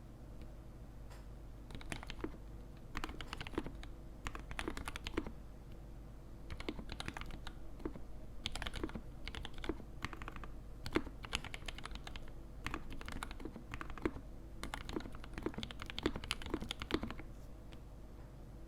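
Custom E6-V2 mechanical keyboard, with a brass plate, mixed switches and GMK keycaps, being typed on in bursts of keystrokes with short pauses between them. The typing stops shortly before the end. Under it runs a steady low hum of recording noise.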